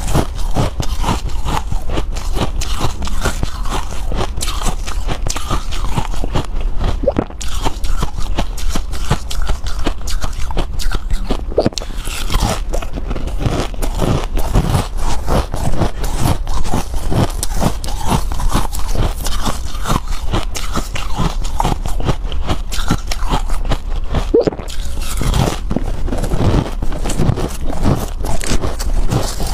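A person chewing mouthfuls of frosty, snow-like ice: a dense, continuous run of small crisp crunches.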